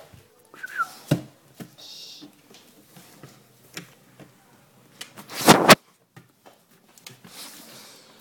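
A dog nosing and brushing against a handheld phone, making scattered knocks, rubs and rustles, with one loud double bump about five and a half seconds in.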